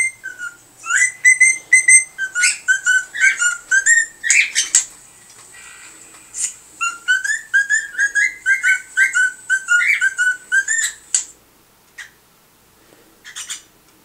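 Cockatiel whistling a tune in quick, evenly paced notes, in two long phrases with a short break between them; the whistling stops about eleven seconds in, with two short chirps after.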